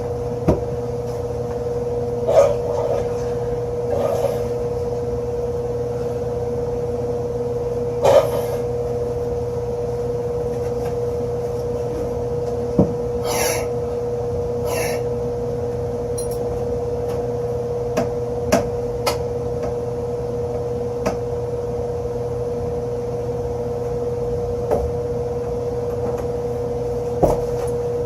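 HVAC equipment humming steadily with a constant tone, while scattered clicks and knocks of hands and tools at work sound over it, with two short hisses about halfway through.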